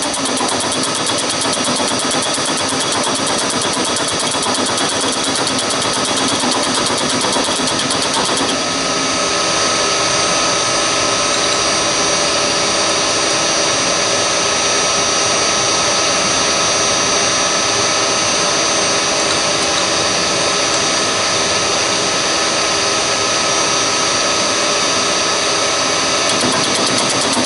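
Milling machine running steadily while its cutter machines a spacer block held on a parallel in the vise, taking it down to just below a scribed line. The cutting sound changes character about eight seconds in and again near the end.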